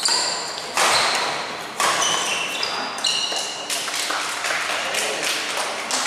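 Badminton rally: sharp racket-on-shuttlecock hits about once a second, each ringing briefly in the hall, with short high squeaks of shoes on the court between the hits.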